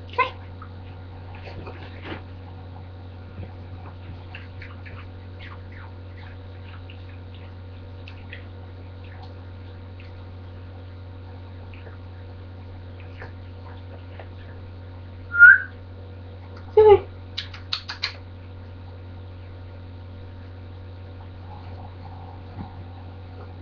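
Small dog whining, short high-pitched calls while begging for a treat, the loudest a high whine about fifteen seconds in and a louder yip a second or so later, with a few faint clicks in between. A steady low electrical hum sits underneath.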